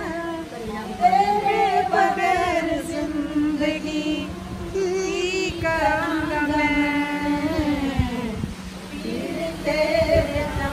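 Women singing a slow song unaccompanied, in long held notes that slide and waver.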